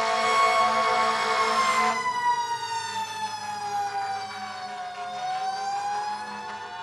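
A vehicle siren wailing: its pitch holds, then falls slowly for about three seconds and starts rising again near the end. For the first two seconds a second, pulsing tone sounds under it.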